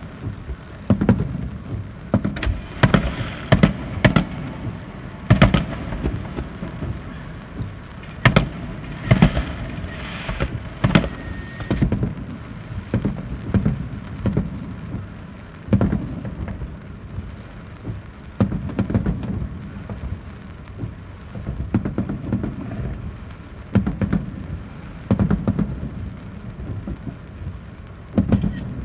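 Aerial firework shells bursting one after another: sharp bangs every second or so, sometimes in quick clusters, with rumbling booms between them.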